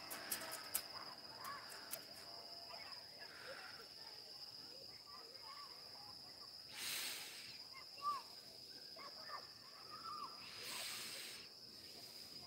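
Faint countryside dusk ambience: a steady high insect drone with scattered short bird chirps, and two soft hisses in the second half.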